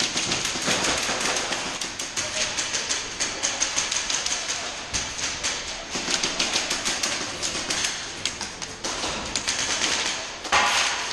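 Airsoft guns firing: rapid strings of sharp clicks, many shots a second, with a louder burst near the end.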